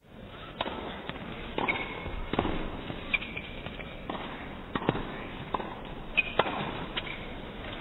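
About a dozen sharp knocks or pops at irregular intervals over a steady low background hiss.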